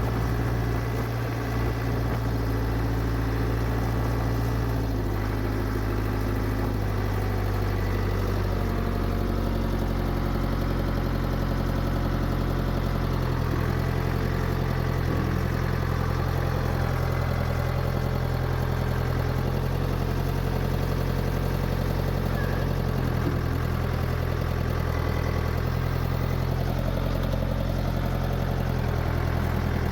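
Engine of a heavy farm machine running steadily, its pitch shifting a few times as the throttle or load changes.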